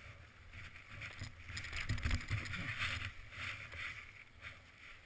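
Footsteps trudging through deep snow: a few uneven crunching steps with low thumps, loudest about two seconds in.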